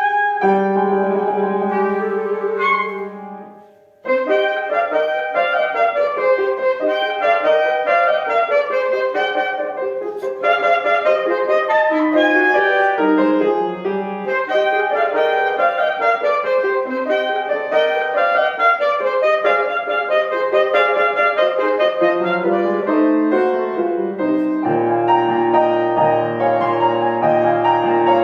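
Solo wind instrument with piano accompaniment. A piece closes in the first few seconds, and after a brief break near four seconds a livelier piece with quick running notes begins.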